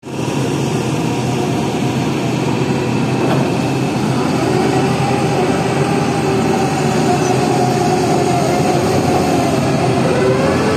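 Heavy construction machine's engine running steadily, its tone rising a little near the end.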